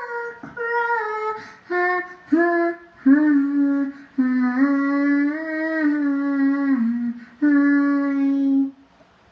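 A young girl singing alone, without accompaniment. A few short notes come first, then long held notes, the longest about three seconds. She stops a little before the end.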